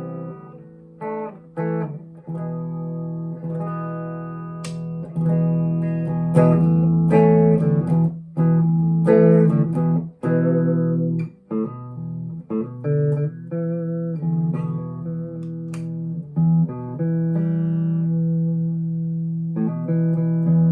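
Harley Benton SC-500 electric guitar played clean through a Fender Mustang LT25 amp with no effects: picked chords and single notes, stopping and restarting every second or so, with a chord left ringing near the end.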